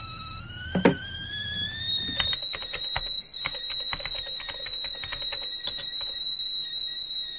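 Rapid typing on a laptop keyboard, a quick run of key clicks from about two seconds in until shortly before the end. Over it a high, thin whistle rises in pitch for the first couple of seconds and then holds steady on one note.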